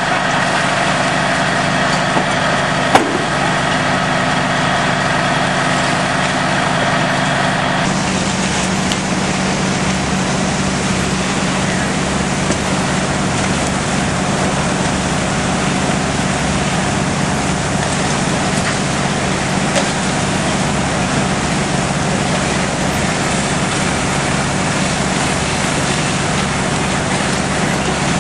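Fire apparatus engines running steadily, pumping water to the hose streams, under a constant rushing noise. One sharp knock about three seconds in. About eight seconds in, the engine's humming tones fade and the rushing noise evens out.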